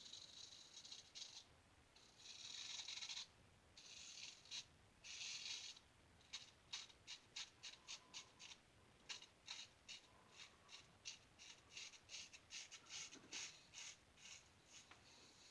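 An 1887 Star Lather Catcher safety razor scraping through lathered stubble, faint. A few longer strokes come first, then a run of short quick strokes at about three a second.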